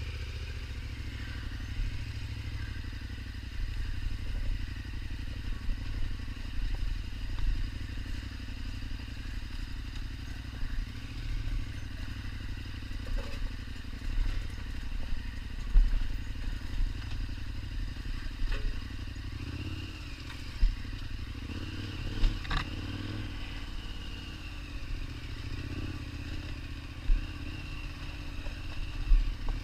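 KTM 1290 Super Adventure's V-twin engine running steadily as the bike rides, with clatter and a few sharp knocks scattered through.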